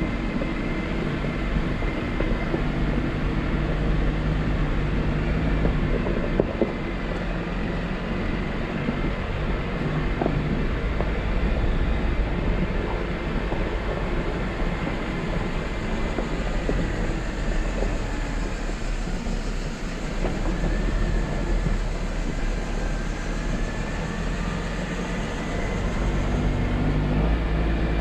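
Jeep Wrangler driving a rough off-road trail: steady engine rumble with scattered knocks and rattles.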